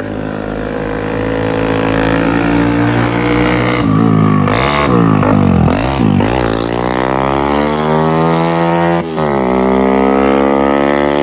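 Motorcycle engine revving hard. Its pitch wavers as the throttle is worked, then climbs steadily, drops sharply about nine seconds in as it shifts up a gear, and holds high again.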